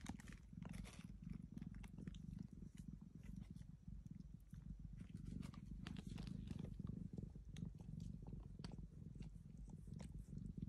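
Mother cat purring steadily and low, with scattered faint clicks as she licks her newborn kitten.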